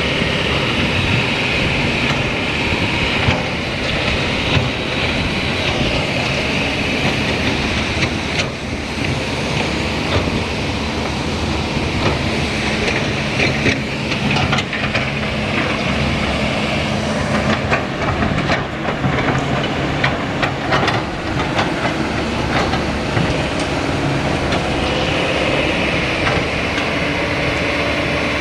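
Kobelco 220 excavator's diesel engine and hydraulics working under load, with a hissing whine that rises and falls as the hydraulics work and scattered knocks and clanks throughout.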